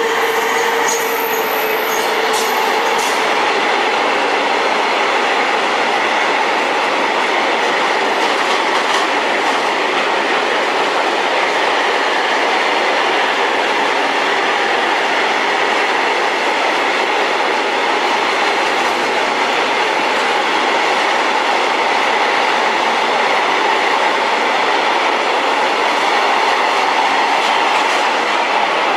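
SNCF BB 27000-class electric locomotive passing, followed by a long freight train of container flat wagons rolling by at steady speed, wheels running over the rails. A few high tones sound in the first few seconds as the locomotive goes by, then a steady rolling noise.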